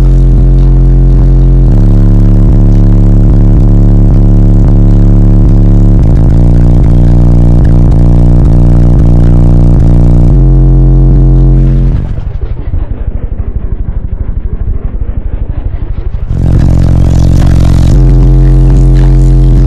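Six Sundown SA-12 subwoofers in a fourth-order bandpass box playing a bass-heavy song very loud, heard inside the car, the deep bass notes stepping from one pitch to the next. Past the middle the treble falls away and the level dips for about four seconds, then the full sound comes back.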